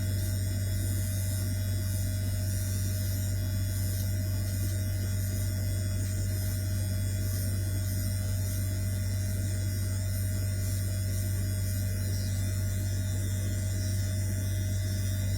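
Hair dryer running steadily: a constant low hum with an even airy hiss above it.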